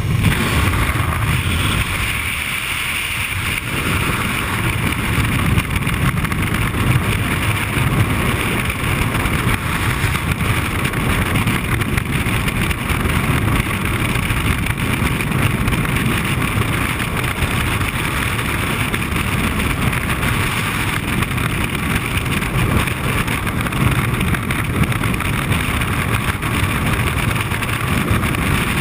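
Freefall wind rushing over a helmet-mounted action camera's microphone, a loud, steady rush that barely changes for the whole stretch.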